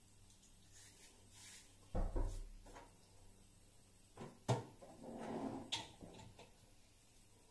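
Faint knocks and clicks of things being handled. There is a dull knock about two seconds in, a sharp click around four and a half seconds, then a short rustle ending in another click.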